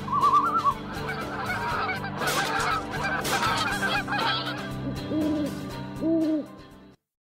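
Outro music bed of held tones with animal-call sound effects laid over it: warbling bird calls at the start, a dense burst of chattering calls, then two goose honks near the end. The audio cuts off abruptly just before the end.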